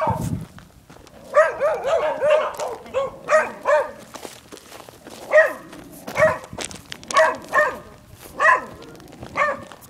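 A dog barking repeatedly: a quick run of barks about a second in, then single barks about once a second.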